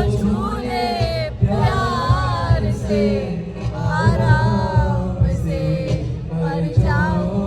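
Song playing: a singing voice over music with a heavy low beat.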